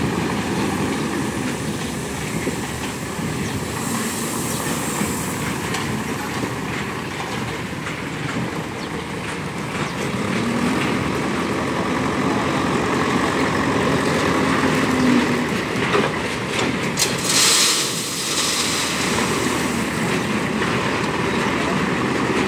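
Diesel engine of a JCB backhoe loader running steadily as it carries a loaded front bucket, the engine note rising and holding for a few seconds midway under load. A short loud rattling burst comes about three quarters of the way through.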